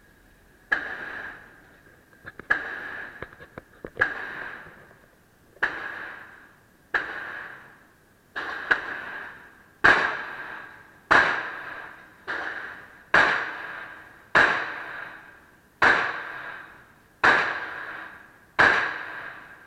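Glock 42 .380 pistol firing single shots at a steady pace, about one every second and a half, roughly fourteen in all, each shot trailed by a short echo. A few light clicks come between the first shots.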